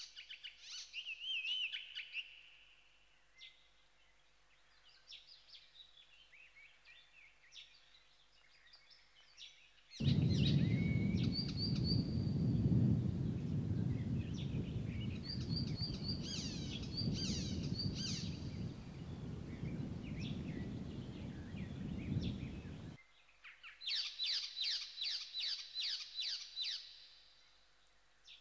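Songbirds singing: repeated chirping phrases and fast trills of quick descending notes. From about ten seconds in, a loud low rushing noise runs beneath the song for about thirteen seconds, then cuts off abruptly.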